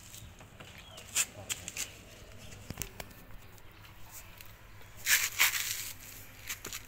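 Dog eating rice out of a styrofoam takeaway box: scattered clicks and crackles of chewing and the muzzle against the foam, with a louder scraping rustle about five seconds in.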